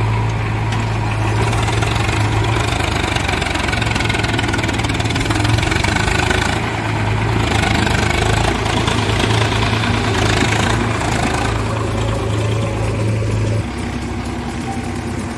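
Diesel engines of a Swaraj 735 FE tractor and a JCB 3DX backhoe loader running together, the tractor driving past close by with a steady engine hum. About 14 seconds in the loudest engine note drops away and the sound becomes quieter.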